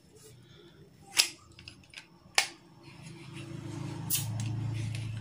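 Handling clicks from an Innova multi-pump air rifle's wooden pump arm: two sharp clicks, then a low rumbling noise that swells from about three seconds in as the arm is swung open from the barrel.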